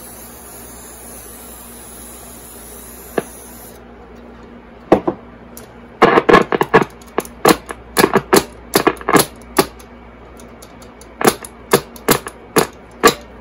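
Zenith Trans-Oceanic H500 tube radio: steady hiss with a high whine for the first few seconds, then a run of loud, irregular pops and crackles in two clusters, as the set's band and tuning are worked.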